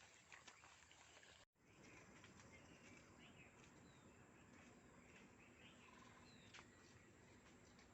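Near silence: faint outdoor background with a few faint, short bird-like chirps and small clicks, and the sound cutting out completely for a moment about a second and a half in.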